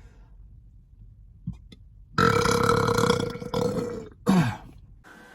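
A man's long, loud burp lasting nearly two seconds, held at a steady pitch, followed by a brief vocal sound falling in pitch.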